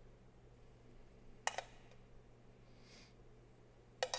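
A metal spoon clinks against a stainless steel pan while diced peppers are spooned out: one clink about a second and a half in and two quick ones near the end, over a faint steady hum.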